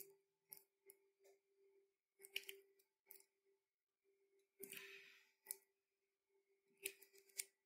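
Faint scattered clicks and short scraping sounds of a steel intramedullary pin being twisted into the tibia with a hand chuck, the longest scrape about four and a half seconds in, over a faint steady hum.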